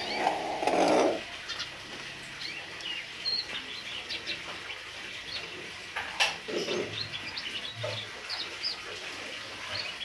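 Common hill myna calling in short high chirps and clicks, scattered irregularly, with a louder rough burst in the first second and another a little after the middle.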